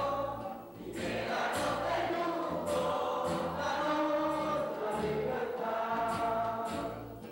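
Music: a choir singing in held phrases of about a second each.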